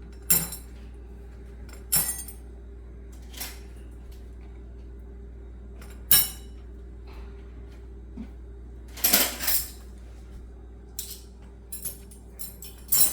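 Forks and spoons clinking as they are dropped one at a time, handle down, into a dishwasher's silverware rack: short sharp clinks every second or two, a quick cluster about nine seconds in, and several more in quicker succession near the end.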